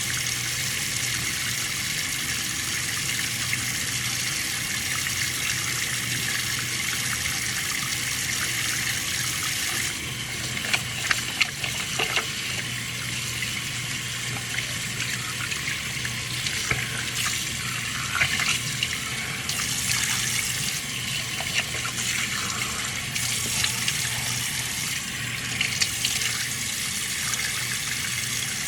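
Water running from a tap into a sink in a steady stream. About ten seconds in, the flow changes and irregular splashes break into it.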